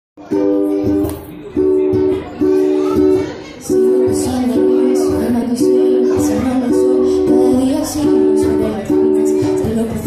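Ukulele strummed in a steady rhythm, repeating chords that start just after the beginning and carry on without a break.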